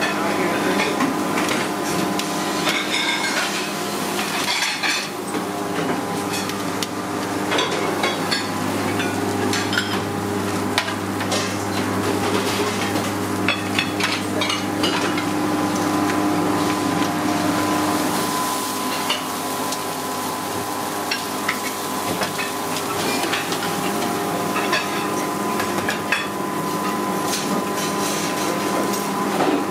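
Restaurant kitchen at work: steaks sizzling on a char-grill, metal tongs clicking against the grill grates and meat, and plates and dishes clinking, all over a steady hum of kitchen equipment.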